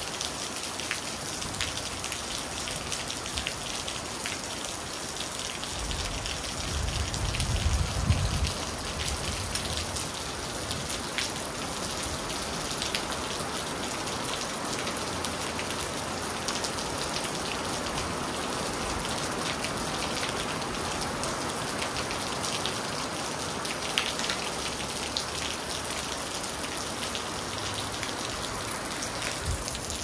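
Steady rain falling, with single drops hitting sharply on a surface. A low rumble swells and fades about six to eight seconds in.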